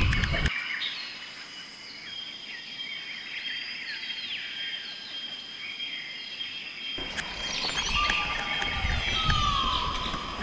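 Birds chirping and calling, with a long steady high whistle in the middle. The low rumble of the mountain bike riding over dirt drops away at first and comes back about seven seconds in.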